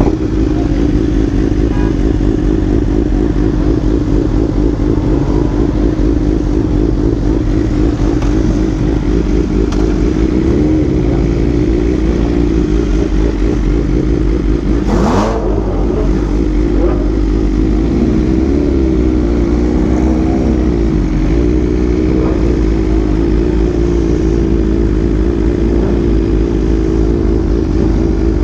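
Superbike engine running at low revs, its pitch wavering gently up and down, over a steady low rumble, with one short sharp noise about halfway through.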